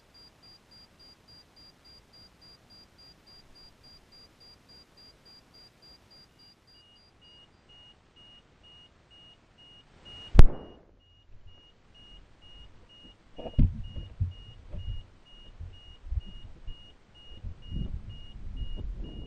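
High-altitude balloon bursting: one sharp bang about ten seconds in, followed by irregular knocks and rattles as the camera payload and its cords tumble into free fall. Faint, evenly pulsed electronic beeping runs beneath it before the burst.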